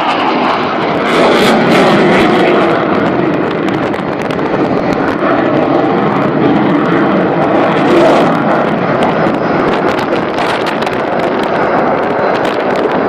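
Aircraft engine noise, loud and steady, with many short crackles running through it.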